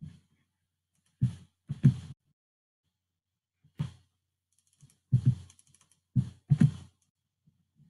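Computer keyboard keys and mouse buttons clicking, about seven separate strokes, some in quick pairs.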